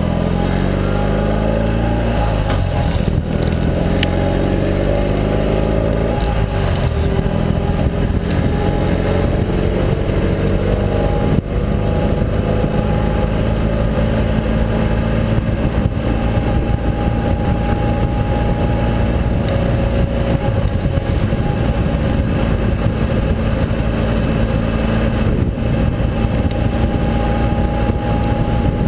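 Ural sidecar motorcycle's air-cooled flat-twin engine pulling along the road. It rises in pitch as it accelerates over the first few seconds, then runs steadily at cruising speed, with wind rush over the microphone.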